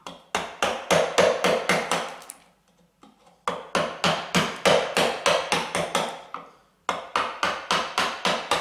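Round wooden mallet striking a bench chisel in quick repeated blows, about four or five a second, as the chisel chops down into beech. The blows come in three runs, with a pause of about a second near the middle and a brief gap near the end: small cuts creeping up on the gauge line.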